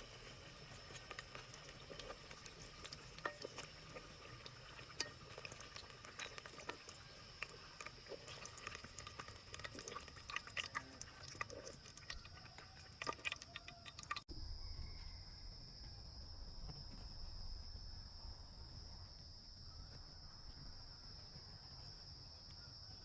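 Scattered small clicks and taps of handling over a steady high insect drone. The clicks stop abruptly about halfway through, leaving the insect drone and a low rumble.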